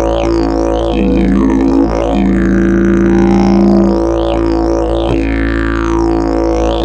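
Fiberglass and prickly pear fiber double-slide didgeridoo played as a continuous drone. Its emphasised overtones shift every second or two, and sweeping changes run through the upper tone.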